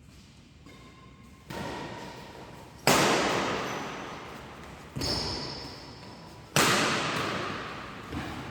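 Four sharp bangs, about a second and a half apart, the second and fourth the loudest. Each one rings on and dies away slowly, as in a large hall.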